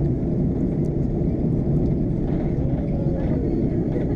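Steady low roar inside the cabin of an Airbus A330-243 in descent, the rush of air over the fuselage mixed with the drone of its Rolls-Royce Trent 700 engines, heard from a window seat over the wing.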